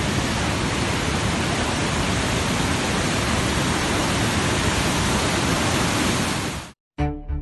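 Steady, even rushing noise with no rhythm or pitch, like rushing water or white noise, that cuts off abruptly near the end; a moment later music begins.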